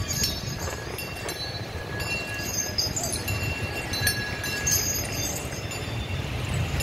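Metal chains on walking elephants' legs clinking irregularly, over a steady low rumble of street traffic.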